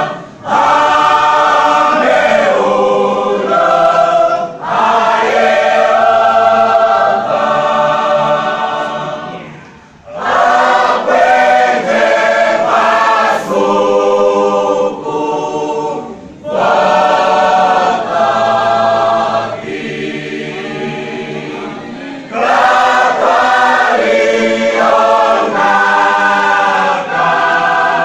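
Church choir singing, in sung phrases separated by short pauses, the longest break about ten seconds in.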